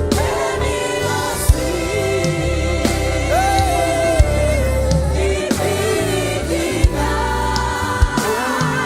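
Live gospel worship music: sustained singing over keyboard and deep, steady bass notes, with a few sharp percussive hits.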